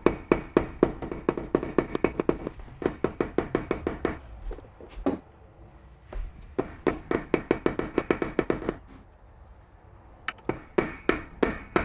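Small hammer tapping a new torque converter seal into a ZF6HP26 transmission's front pump housing through a tape-wrapped metal driver, working evenly around it to seat it. Runs of quick light taps, about five a second, broken by short pauses.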